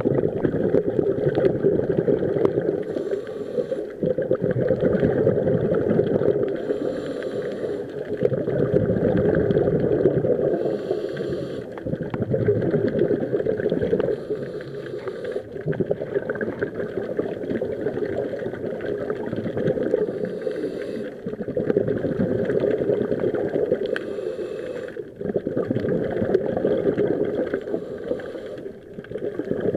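A scuba diver breathing through a regulator, heard underwater: a short inhaling hiss about every four seconds, with exhaled bubbles gurgling in between.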